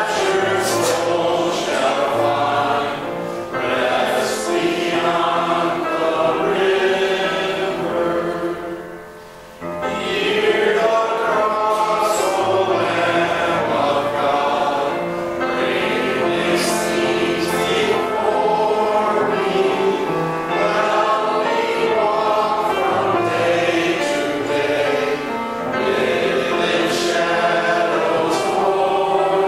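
Church congregation singing a hymn together, with a brief break between lines about nine seconds in.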